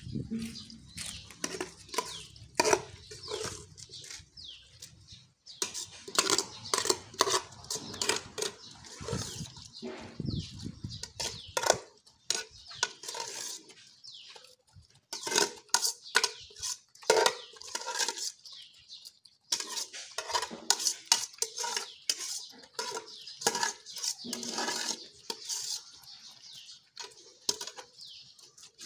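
Several dogs eating rice from a shared enamelled metal plate: dense, irregular clicks and clinks as their muzzles and teeth knock against the plate while they eat.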